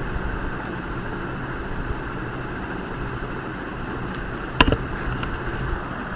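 Steady background hiss and low hum of an open microphone, with one sharp click about three-quarters of the way through.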